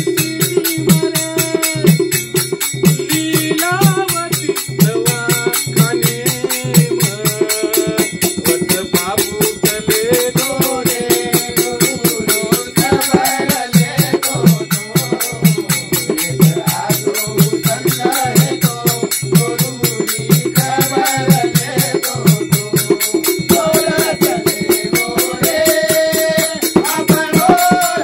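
Banjara devotional bhajan: a voice singing over a fast, steady percussion beat, with a held drone underneath.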